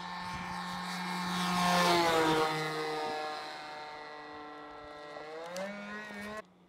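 Small RC airplane engine droning overhead: it grows louder to a peak about two seconds in, then drops in pitch and fades as the plane passes. Near the end the pitch rises briefly before the sound cuts off abruptly.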